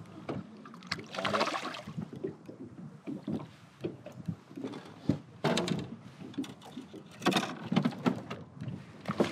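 Irregular knocks, clicks and scrapes of gear being handled in a small fishing boat, with busier stretches about a second in and again after five seconds.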